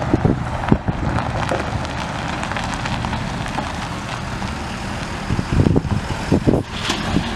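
Ford 6.7 L Power Stroke V8 turbo diesel idling steadily. From about five seconds in, uneven gusts of wind buffet the microphone.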